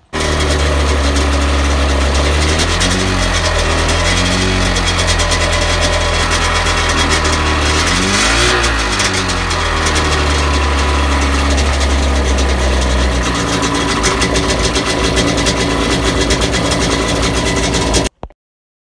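Sea-Doo jet boat's Rotax 717 two-stroke twin-cylinder engine running, freshly fitted with a new rotary valve and shaft and running smoothly. The revs rise and fall briefly about three and four and a half seconds in, and more sharply about eight and a half seconds in. It cuts off suddenly near the end.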